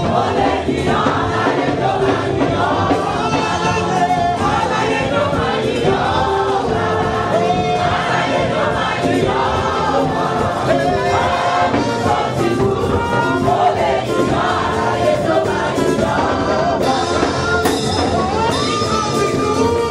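Live gospel praise music: a congregation singing together with a band that includes trumpets and keyboard.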